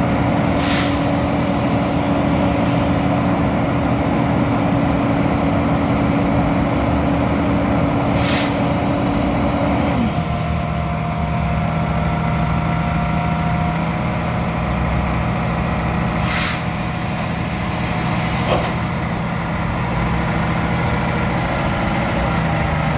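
Diesel engine of a Freightliner M2 truck running steadily; about ten seconds in its speed drops and it settles to a lower idle. Three short hisses of air are heard, and there is a small click near the end.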